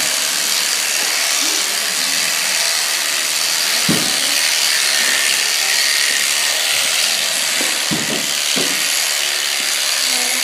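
Electric shearing handpiece running steadily as it clips through alpaca fleece, a constant hissing whir. A few low knocks sound about four seconds in and again around eight seconds.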